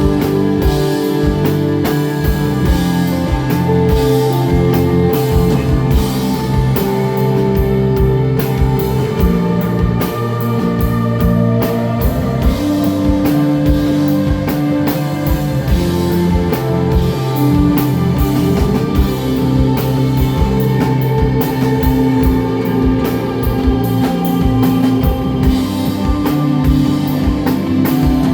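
Instrumental rock band playing live: electric guitar, bass guitar and drum kit, with long held notes over a steady drumbeat.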